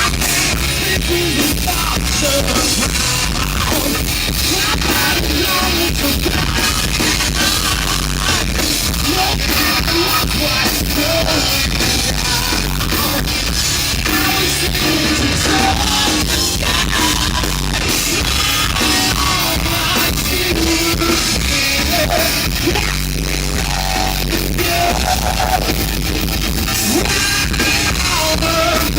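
Rock band playing loud, with drum kit, guitar and sung, partly shouted vocals.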